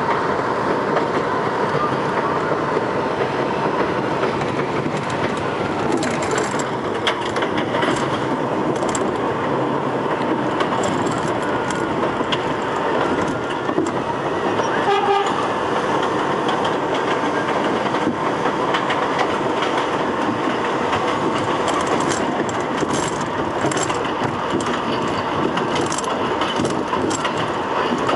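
R62A subway train running on elevated track: a steady rumble of wheels on rail, with scattered clicks over the rail joints. About halfway through comes a short horn toot.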